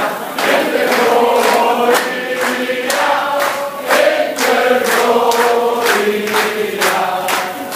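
A group of voices singing a song together, with sharp hits marking a steady beat about once a second.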